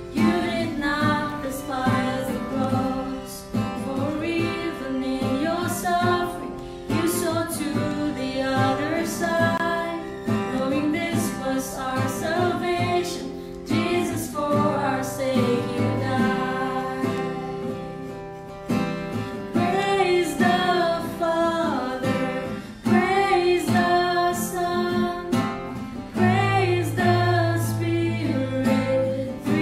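Two women singing a worship song together to a strummed acoustic guitar.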